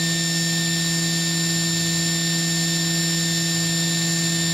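Spindle of a YCM Supermax XV1020A CNC vertical machining center running at 10,000 RPM, its top speed: an even, steady whine made of several unchanging tones.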